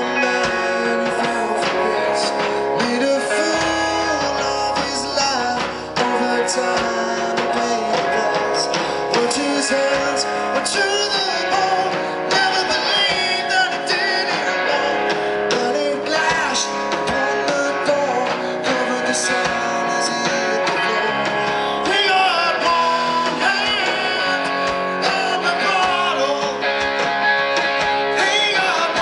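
Live blues-rock band playing: overdriven electric guitar, bass guitar and drum kit, with a man singing.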